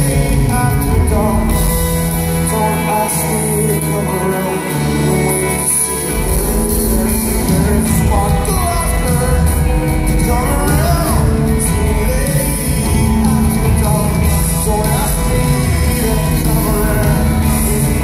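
Rock band playing live in a large hall, with lead vocals over guitars, bass, drums and keyboards; the full band comes in heavier about six seconds in.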